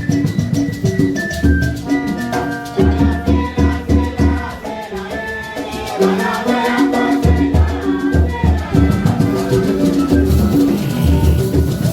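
Background music with a steady beat: strong bass pulses, percussion and a melody.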